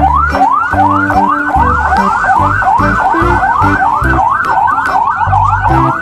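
Police siren sound: a quick rising wail that repeats about three times a second, over background music with a steady bass beat.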